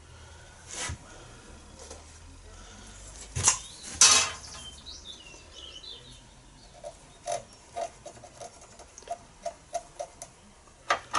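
Small metal fittings and hand tools being handled on a workbench while marking out holes: a few sharp clicks and knocks, the loudest about four seconds in, a brief run of high squeaks, then a string of light ticks, about two or three a second.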